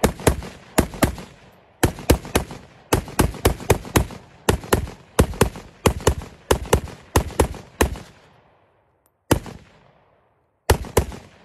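Century Arms Mini Draco AK-pattern pistol in 7.62×39 firing a rapid string of semi-automatic shots, about two to three a second, each followed by a short ringing echo. Near the end the firing pauses twice for about a second before a few more quick shots.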